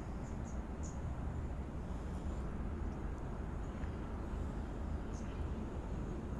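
Steady low outdoor rumble on the microphone, with a couple of faint clicks.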